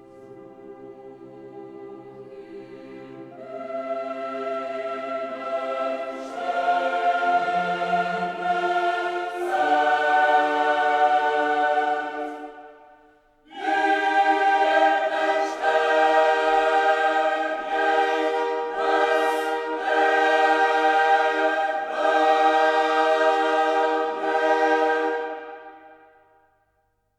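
Background choral music of long held chords that build up, break off for a moment about halfway, start again and fade out near the end.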